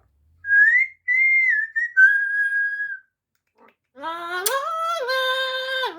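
Amazon parrot whistling three clear notes: a rising one, an arching one, then a long, slightly falling one. It is followed by a drawn-out, voice-like call that rises and then holds.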